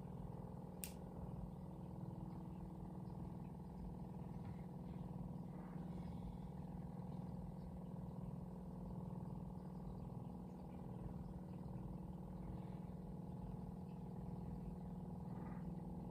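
Steady electric hum of a model railroad turntable's drive motor as it slowly rotates the turntable bridge. A single sharp click comes about a second in.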